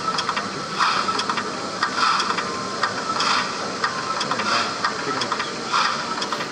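HO-scale model steam locomotive with a sound decoder, giving slow, evenly spaced steam chuffs about one every 1.2 seconds as it creeps along the track, with faint clicks between the chuffs.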